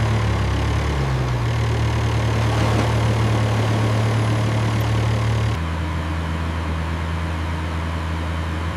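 Heavy construction machine engine sound effect running steadily, with a low hum that shifts pitch about a second and a half in and drops to a lower, slightly quieter hum about five and a half seconds in.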